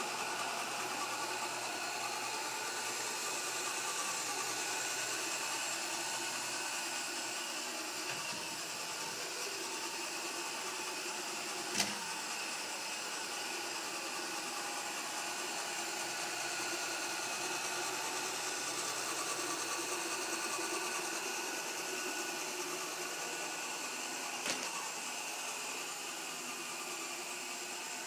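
iRobot Roomba robot vacuum running, a steady motor whir with a high hiss. Two short knocks stand out, about twelve seconds in and again later on, the first the louder.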